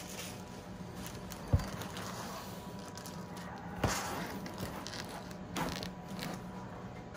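A cardboard box is pushed and shifted inside a cardboard shipping carton on a table, with light scraping and rubbing. There is a sharp knock about one and a half seconds in, another near four seconds and a softer bump later, over a steady low hum.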